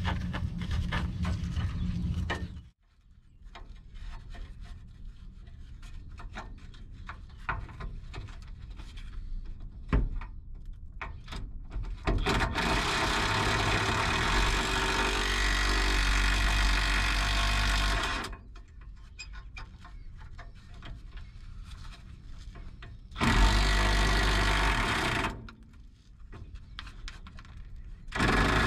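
Small cordless impact driver hammering in several bursts on rusted 9/16 muffler-brace bolts without breaking them loose: a short burst at the start, a longer one of about six seconds in the middle, a short one a few seconds later, and another starting near the end. Between the bursts, quieter clinks and scraping of tool handling.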